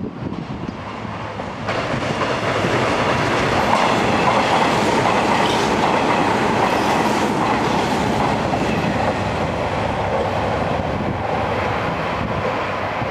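Hanshin 8000 series electric train running past on the track; the train noise jumps up suddenly a couple of seconds in and stays loud, easing slightly near the end.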